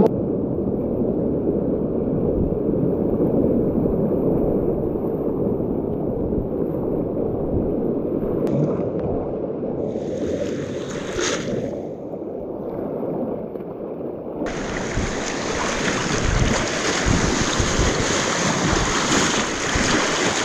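Rushing river whitewater with wind buffeting the microphone, a steady noisy wash. It sounds dull at first, then turns abruptly brighter and fuller about fourteen seconds in.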